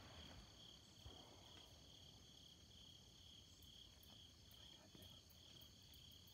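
Faint insect chorus: a high, steady trill pulsing about twice a second, with a couple of faint clicks.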